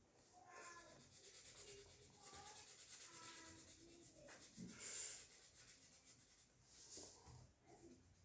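Felt-tip marker pen scratching faintly over paper in quick back-and-forth strokes as an area of a drawing is coloured in.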